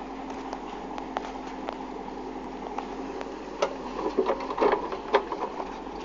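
Backhoe loader's engine running steadily under load. In the second half, a cluster of sharp cracks and knocks as the bucket tears the palm's root ball out of the soil.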